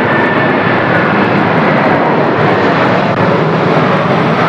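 Airliner passing low overhead: a loud, steady rush of engine noise with a faint high whine slowly falling in pitch.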